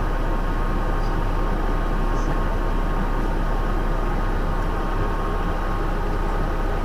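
Scammell S26 heavy tractor's diesel engine running steadily in a low gear at crawling pace, heard from inside the cab as a constant drone with a steady whine on top.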